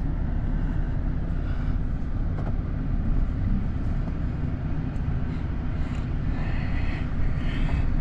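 Steady low rumble of a vehicle engine running, with no clear changes in pitch.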